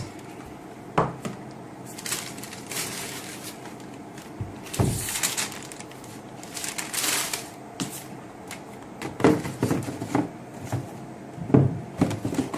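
Cardboard sneaker box being handled and opened by hand: scattered knocks and clicks of the box and lid, with several stretches of rustling as the contents are unwrapped.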